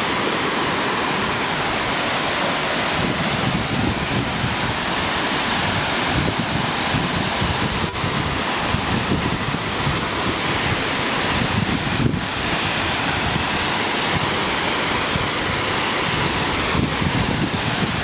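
Steady rushing roar of the Kayoufeng Waterfall close by, with wind buffeting the microphone in uneven gusts.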